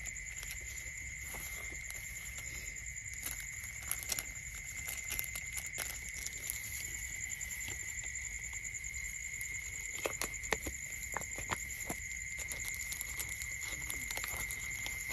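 Dry straw bedding rustling and crackling in scattered short clicks as a Eurasian otter pup moves through it, over a steady high-pitched whine.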